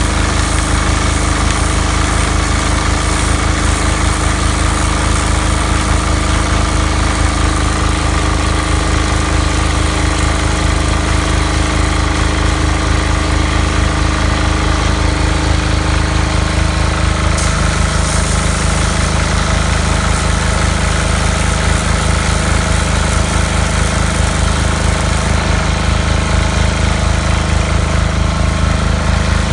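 Pressure washer running steadily with a fast, even pulsing, its pump drawing water from a bucket through a double strainer. There is a brief click a little past halfway.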